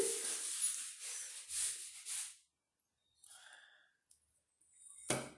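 A person's breathy exhalations, a few hissing puffs that fade out over the first two seconds, then a brief sharp sound near the end.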